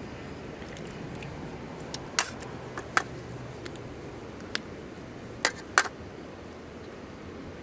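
Several sharp clicks and clacks of small hard objects being handled, the loudest a little after two seconds, at three seconds and near six seconds, over a steady background hiss.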